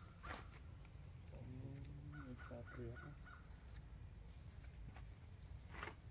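Faint crow cawing: a quick run of about five short calls a little past two seconds in, with a lower, wavering call beneath them and two sharp clicks, one near the start and one near the end.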